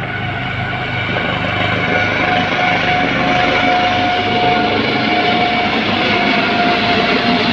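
Military helicopters flying overhead in formation: a steady rotor and turbine noise with a thin steady whine, growing gradually louder.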